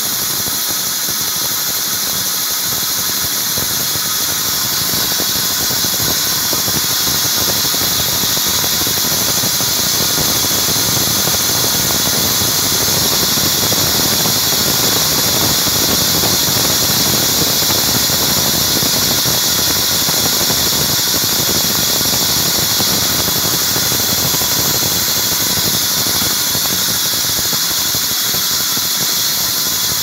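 Large sawmill band saw ripping a log lengthwise into slabs: a steady, high-pitched hiss and whine of the blade cutting through the wood, a little louder through the middle.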